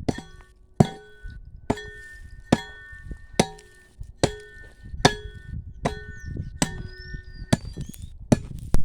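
Small iron-handled digging hoe chopping into the ground, about ten strokes at a steady pace of a little more than one a second, each a sharp hit with a brief metallic ring.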